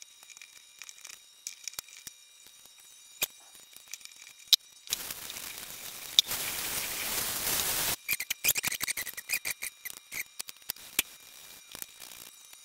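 Tap water running into a stainless steel sink for about three seconds in the middle, between stretches of scratchy clicks and crackles as fingers work loosened old paint out of a paintbrush's bristles.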